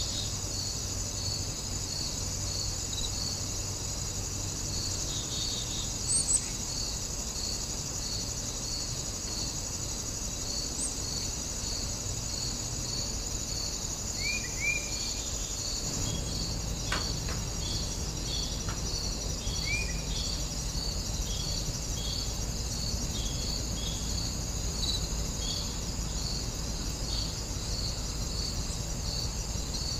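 Steady chorus of insects in grass, shrill and high, with one chirp repeating about twice a second throughout. A couple of short bird chirps come in about 14 and 20 seconds in.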